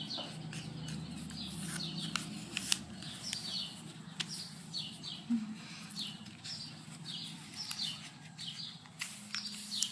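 A bird chirping repeatedly, short falling chirps about once a second, over a low steady hum, with the crackle and creasing of a sheet of paper being folded.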